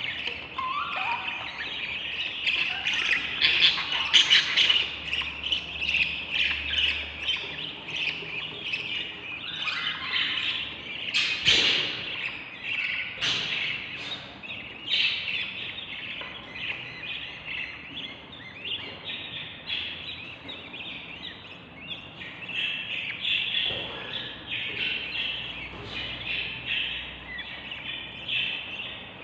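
Baby budgerigar chicks chirping in a dense, continuous chorus, the begging calls of hungry nestlings. The chorus is loudest a few seconds in and again near the middle, then somewhat quieter.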